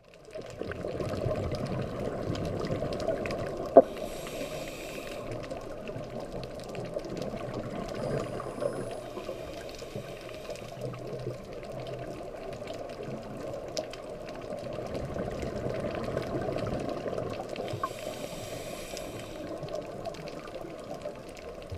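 Muffled underwater noise heard through a dive camera's housing, with a scuba diver's exhaled regulator bubbles hissing in two bursts, about four seconds in and near the end. A single sharp click comes just before the first burst.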